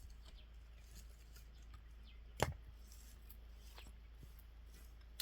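A single sharp click or snap about two and a half seconds in, with a few fainter ticks, over quiet outdoor background.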